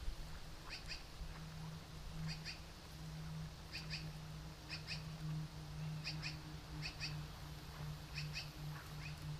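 An animal calling repeatedly in short, high double notes, seven in all about a second or so apart, over a steady low hum.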